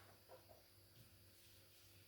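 Near silence: faint room tone with a couple of soft, brief sounds in the first half second and a faint click about a second in.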